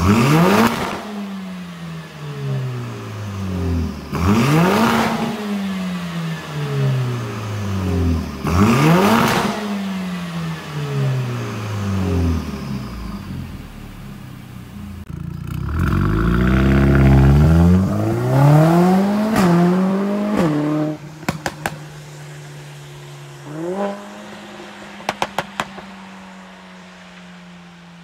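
Mercedes-AMG CLA45 S's turbocharged 2.0-litre four-cylinder through a Fi valvetronic catback with catless downpipes, revved sharply three times about four seconds apart, the revs falling away after each, then held up for a few seconds. It drops back to idle with a run of sharp crackles from the exhaust, a short blip and more crackles, and settles to a steady idle.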